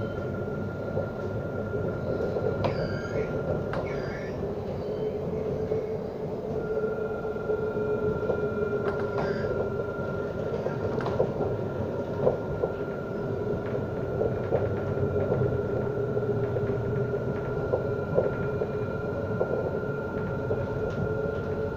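Alstom Citadis 302 tram running along the line, heard from inside the passenger saloon: a continuous rumble of wheels on rail with a steady whine and a few light clicks.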